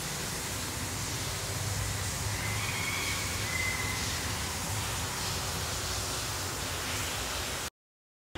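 Steady rushing wind noise on the microphone, with faint short chirps around two and a half to four seconds in; it cuts off abruptly to silence near the end.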